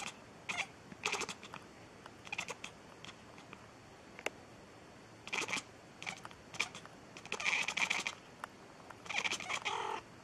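White cat making short, clipped calls in quick clusters. The longest and loudest run comes about two-thirds of the way in, and another near the end.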